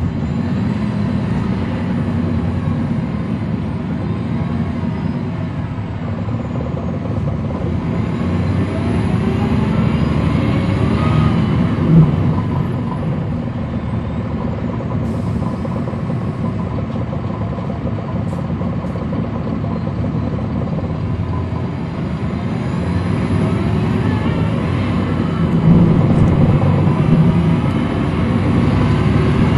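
Cummins ISL9 diesel engine of a 2010 NABI 40-foot suburban transit bus, heard from the rear of the cabin as the bus drives, a deep steady rumble. Twice the engine note rises and grows louder as it pulls harder, and a brief sharp knock stands out about twelve seconds in.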